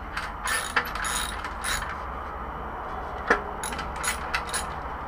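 Hand socket ratchet clicking in short groups while loosening a bolt on a motorcycle's stock exhaust, with one sharp metallic click about three seconds in.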